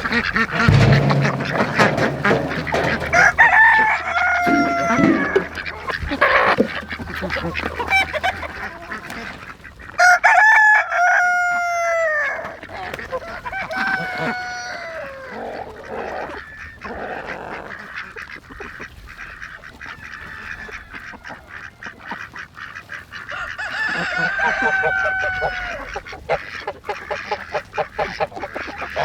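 Farm ducks and chickens calling, a flock of loud calls that drop in pitch, thickest about ten seconds in and again near the end. A low steady hum sits under the first eight seconds or so.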